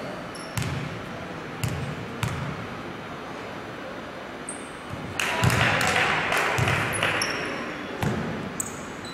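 A basketball being dribbled on a court in a large hall, its bounces coming at uneven intervals and echoing, with short high shoe squeaks. About five seconds in, crowd noise swells for a couple of seconds.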